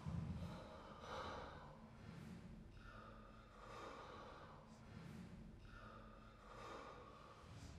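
A person breathing hard, short loud breaths in and out, roughly one a second.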